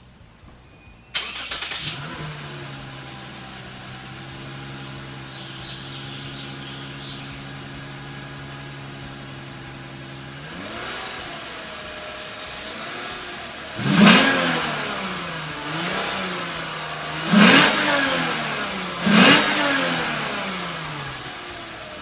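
Lexus GS350's 3.5-litre V6 through its stock factory exhaust, heard at the tailpipe: it fires up about a second in and settles to a steady idle. Near the end it is blipped gently once, then revved sharply three times, each rev climbing quickly and falling back to idle; the three revs are the loudest sounds.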